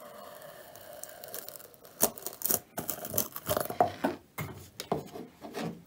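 Polystyrene foam being cut and broken out of a round plastic pipe fitting: a faint steady sound for the first two seconds, then irregular squeaky crunching and tearing as the foam plug is worked loose.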